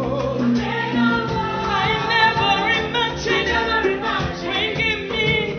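Gospel music with singing voices over instrumental backing.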